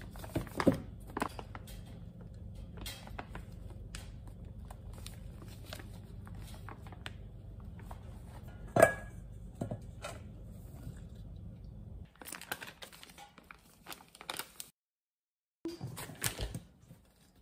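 Paper flour bag rustling and crinkling as flour is tipped out of it into a plastic measuring cup, with scattered light knocks and a sharper knock about nine seconds in. Near the end the flour is poured from the cup into a stainless steel bowl with more soft rustling.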